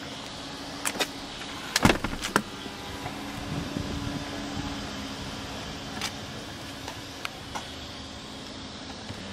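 Electric motor of a Mercedes-Benz CL63 AMG's power front passenger seat whirring steadily as the seat tips and moves forward to open the way to the rear seats. A cluster of sharp clicks and knocks comes about two seconds in, the loudest part, and a few lighter clicks follow later.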